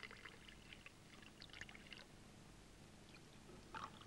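Faint pouring of coffee from a steel jug into glass tumblers, trickling for about two seconds and then fading to near silence.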